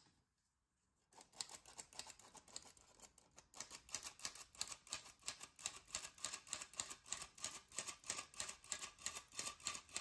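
Hand-operated metal flour sifter being worked over a bowl: a fast, even clicking and rasping of about four strokes a second as the handle drives the agitator over the mesh and flour falls through. It starts about a second in.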